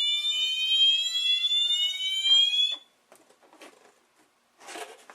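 Wheelock fire alarm horn sounding its siren tone: one electronic note gliding slowly upward, which cuts off about three seconds in. A few faint clicks follow.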